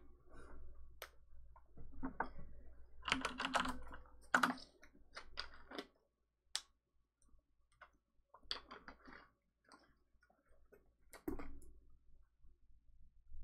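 Typing on a computer keyboard: irregular clicks and taps, busiest in the first six seconds, then only scattered taps.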